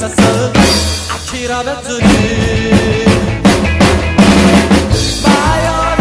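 Acoustic drum kit played live along with a recorded rock and roll song: a driving beat of bass drum, snare and cymbals over the song's music. The beat thins out briefly in the first couple of seconds, then comes back in full about two seconds in.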